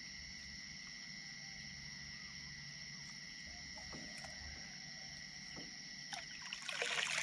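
Crickets trilling steadily in the night. About six and a half seconds in, water splashes and drips at the side of the small boat as a set fishing line is handled out of the river.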